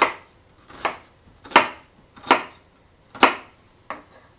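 Chef's knife slicing down through a peeled onion half and hitting a plastic cutting board: six even cuts a little under a second apart, the last one lighter, the first cuts of a brunoise dice.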